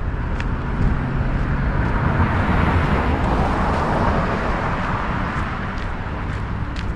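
Car driving along a road: a steady low rumble of engine and tyres, with a broad rushing noise that swells to a peak about halfway through and then fades.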